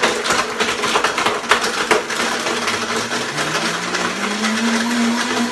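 Vitamix blender crushing ice in almond milk: ice chunks clatter against the jar over the running motor. About three seconds in the clatter thins and the motor's pitch rises, then holds steady.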